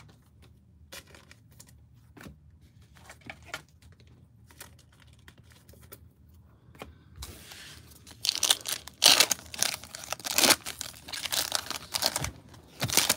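A 2022 Donruss Optic football card pack being torn open, its wrapper crackling and crinkling loudly from about eight seconds in, after a few faint clicks.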